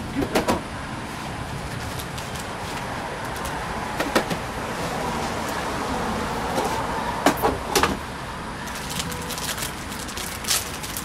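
Steady background traffic noise that swells a little midway, with several sharp clicks and knocks: a pair near the start, one about four seconds in, a cluster around seven to eight seconds, and a few near the end.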